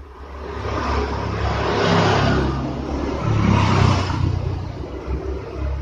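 A motor vehicle engine running, growing louder and fading, loudest about two seconds in and again near four seconds.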